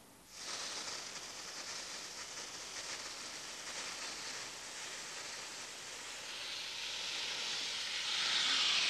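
Air, sand and water blasting jet hissing steadily as it strips paint off a surface. It starts about half a second in and grows louder near the end.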